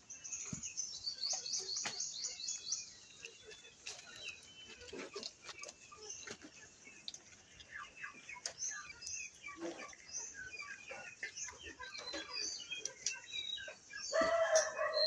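Birds chirping and twittering, a quick run of high notes in the first few seconds and scattered calls after, over small clicks and clinks from dogs eating out of steel bowls. A louder, lower call sounds about a second before the end.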